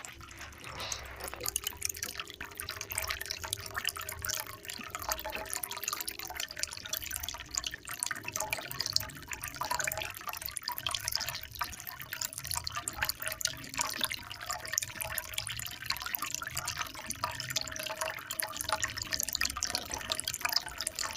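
Trickling, dripping water sound effect: a steady babble of small splashes and drips.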